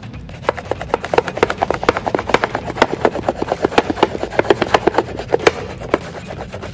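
Crayon scratching over paper laid on a ribbed plastic basket: rapid back-and-forth rubbing strokes, several a second, which grow weaker near the end.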